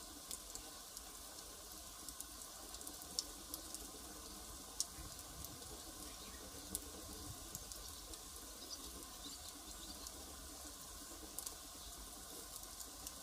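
Firewood fire burning: a soft steady hiss with scattered sharp crackles and pops from the burning wood, a few louder snaps among them.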